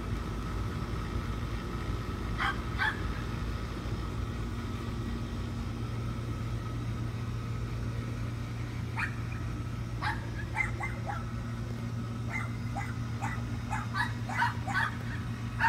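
A dog barking in short, high yips. There are two yips about two and a half seconds in, then scattered ones from about nine seconds, quickening into a rapid run of yaps near the end, over a steady low hum.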